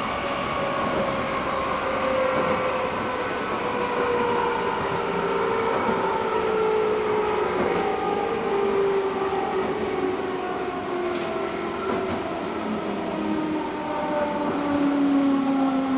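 Traction motor whine of a JR Central 211 series electric train car fitted with internally fanned motors, a car known for abnormal motor noise. Several whining tones fall slowly and steadily in pitch as the train slows, over the rumble of the wheels on the rails, with a couple of sharp clicks.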